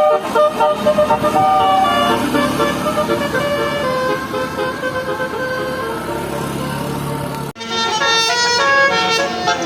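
Bus 'telolet basuri' multi-tone horn playing a tune of stepped notes over a running bus engine. About seven and a half seconds in the sound cuts off abruptly and a second, quicker horn tune of short notes begins.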